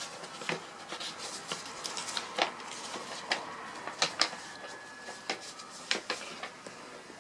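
Hard objects being handled: irregular clicks, taps and knocks with some rubbing, and a brief faint steady tone about two-thirds of the way through.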